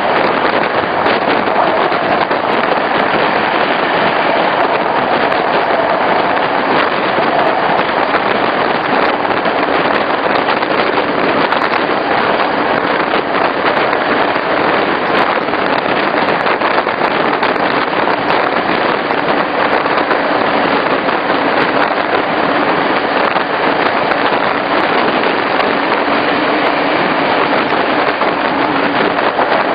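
Regional passenger train running along the line, heard from on board: a steady rolling noise of wheels on rails with a faint hum that drops lower in pitch in the second half.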